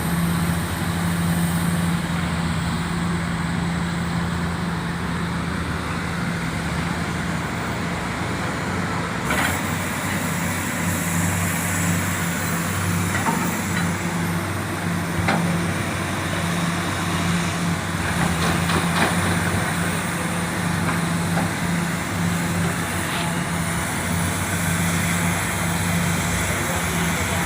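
Komatsu PC400 excavator's six-cylinder diesel engine running steadily under working load, with a constant deep hum and a few faint knocks.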